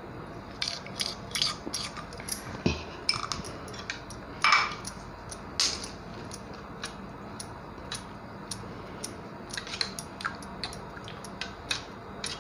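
Steel spoon stirring a thick watermelon-and-milk mixture in a stainless steel pot, clinking irregularly against the pot's sides, with a heavier knock a little under three seconds in.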